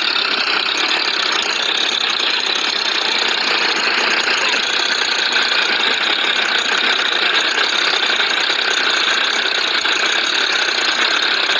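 Tractor diesel engines running steadily as a tractor works its way through deep paddy-field mud.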